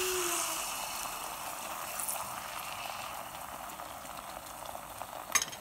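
Beaten egg frying in butter in a hot nonstick pan: a steady sizzle that slowly eases. A few sharp clicks near the end.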